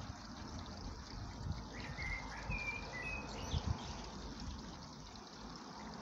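Blackbird singing a short phrase of clear whistled notes about two seconds in, over a steady background hiss.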